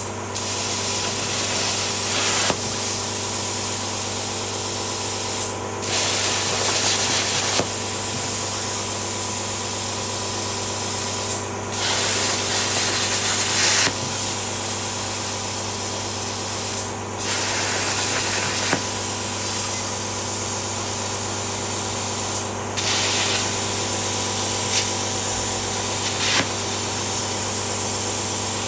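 Plasma cutter torch on a CNC table hissing steadily as it cuts steel plate, over a constant hum. The hiss dips briefly about every five to six seconds and swells louder for a second or two several times.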